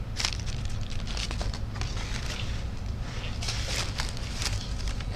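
A low steady hum with light paper rustles and small clicks every second or so, as paper cutout puppet figures are handled and moved.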